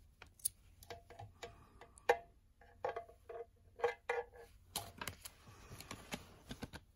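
Handling noise from a USB extension cable and its plugs: a run of irregular clicks and light knocks, several with a short ringing tone, and a brief rustle about five seconds in.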